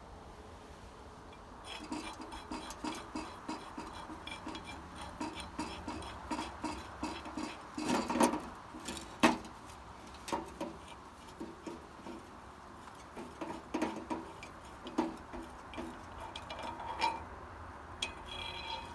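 Metal tools clinking and clanking against the steel crank bearing parts of a vintage bicycle as the bottom bracket is opened up to get at its dry bearings. A steady run of small ringing clinks, with a couple of louder knocks about eight and nine seconds in.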